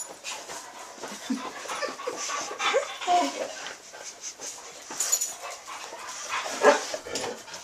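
Dog whining at a cat in short whimpers that rise and fall in pitch, with panting between them; the loudest whine comes near the end.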